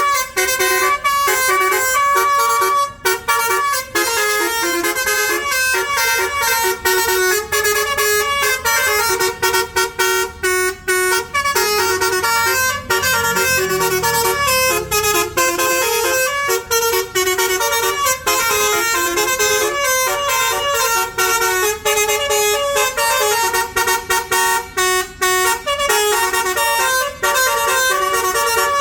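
Multi-tone 'telolet' bus horn playing a fast melody of short, rapidly changing notes without a break.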